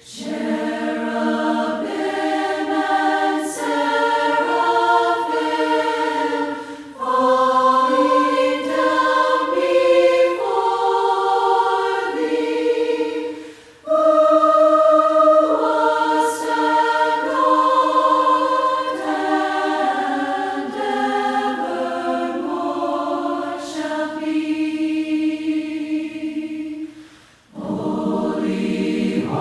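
A group of voices singing a hymn a cappella in several-part harmony. It is sung in phrases, with short breaths about 7 and 14 seconds in and a brief pause near the end.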